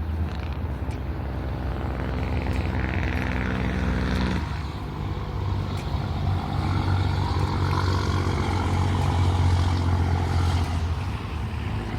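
An engine running steadily with a low rumble; its note changes about four and a half seconds in.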